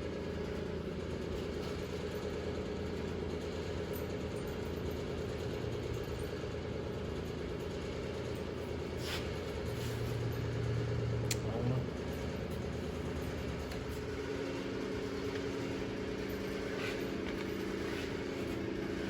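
Steady mechanical hum from a running machine, with a few light metallic clicks about halfway through.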